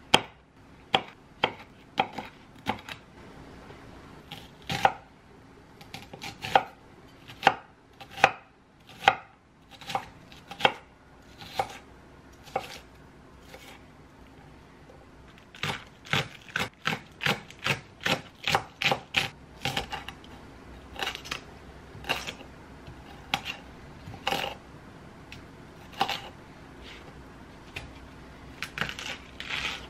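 Chef's knife chopping vegetables on a wooden cutting board: separate knocks about one or two a second, then a quicker run of three or four strokes a second for a few seconds around the middle, then spaced strokes again.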